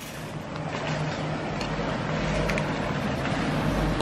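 Steady low rumble and hiss of motor traffic, growing louder over the first second and then holding level.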